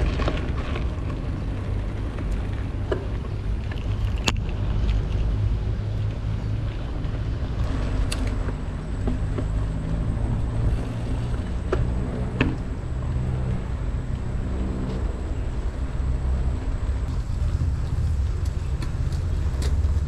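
Wind rumbling over the camera microphone while riding a mountain bike along a muddy off-road trail, with a few sharp clicks and knocks from the bike over the ground.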